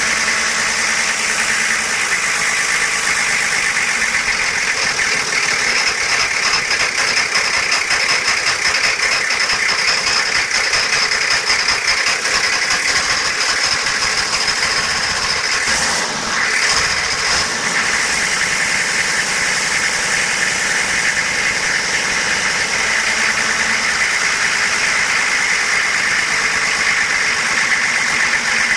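Volvo Penta AQAD40B marine diesel engine idling steadily, the idle noise its owner wants to show. A thin high whine rides over it for several seconds in the middle.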